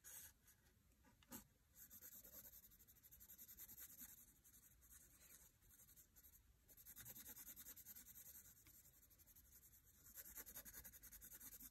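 Mechanical pencil scratching faintly on lined notebook paper in quick back-and-forth strokes, in several spells with short pauses between.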